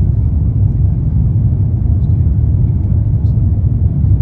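Steady low rumble of an Airbus A350-900 heard from inside the passenger cabin: engine and airflow noise, even throughout.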